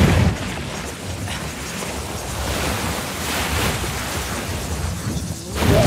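Film sound effect of a great mass of water surging and crashing: a heavy rush at the start that settles into a steady churning roar, swelling again near the end.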